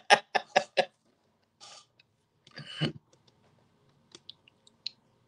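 A man's speech trails off within the first second, followed by two short breathy noises and then a scatter of faint, light clicks over a faint steady hum.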